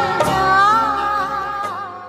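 A woman singing an old Indian film song over instrumental accompaniment. Her long, wavering notes fade out near the end.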